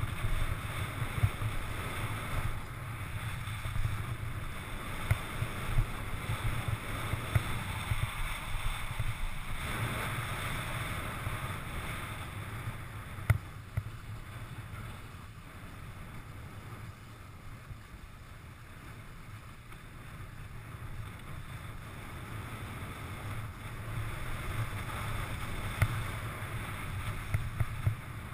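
Wind buffeting the camera microphone, with skis hissing and scraping over packed snow during a downhill run. It is louder at the start and end and eases off in the middle.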